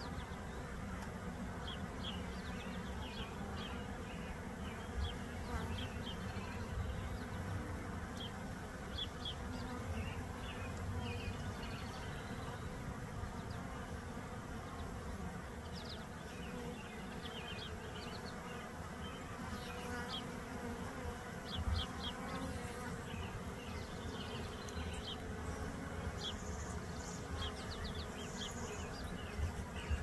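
Honey bees buzzing at a hive entrance: a steady hum of many bees, with short high chirps scattered through it.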